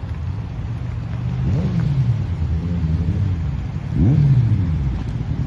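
A vehicle engine idling and revved in two quick blips, the first about one and a half seconds in and a louder one about four seconds in, each rising sharply in pitch and dropping back.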